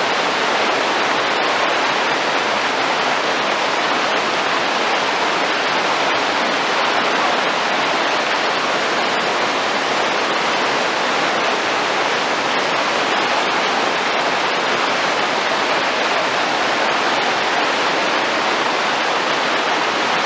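Big whitewater river rapids rushing, a loud, steady, unbroken noise of churning water.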